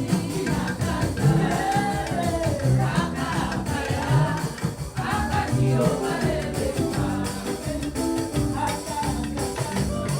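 Gospel praise music: singing over a band with a steady beat.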